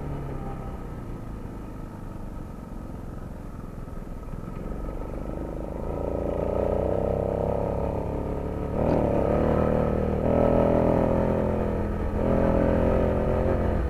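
A motor vehicle engine running and revving in city traffic, heard while riding, getting louder from about six seconds in with two brief dips.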